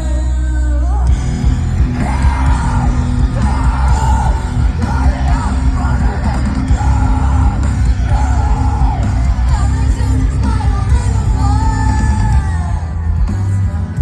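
Loud rock band playing live, with a vocalist singing and yelling over the guitars and drums.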